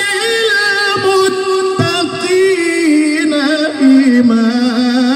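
A male qari reciting the Quran in melodic tilawah style, drawing out "wa ja'alna lil-muttaqina" in one long, ornamented phrase. The held notes step down in pitch, with quivering trills in the second half.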